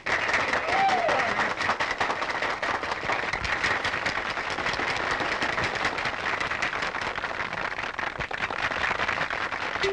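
A crowd applauding: many people clapping their hands together in a dense, steady patter.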